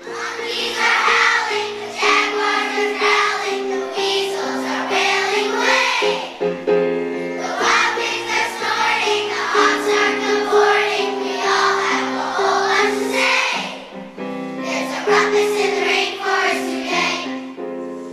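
A choir singing a song over sustained instrumental chords.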